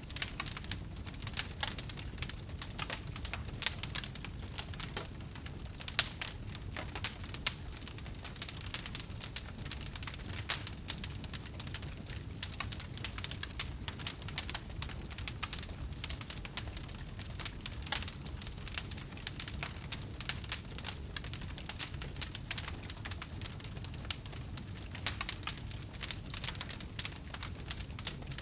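Wood bonfire crackling, with frequent irregular sharp pops of burning wood, a few louder ones in the first several seconds, over a low steady rumble.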